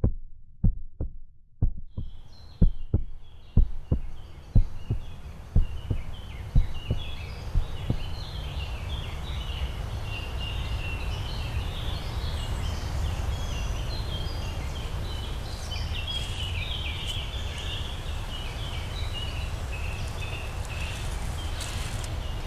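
Deep heartbeat-like thumps, about two a second, fade out over the first eight seconds. Meanwhile a steady low rumble and a dense chorus of high bird chirps come up and carry on.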